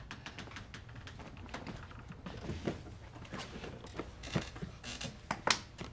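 Handling noises at a table: many small clicks, taps and rustles, with a few sharper clicks in the last couple of seconds, as things are set down and sorted.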